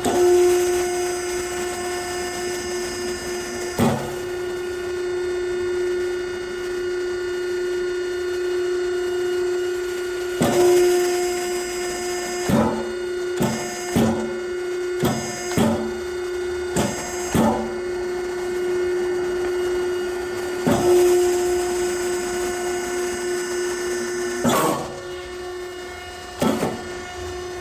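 Hydraulic log splitter running: its three-phase 7.5 hp electric motor and 18 cc hydraulic pump make a steady hum-whine, while the electric solenoid valves click each time the up and down foot pedals are pressed or released. The splitting cylinder rises fast and lowers slowly. A run of quick clicks comes in the middle.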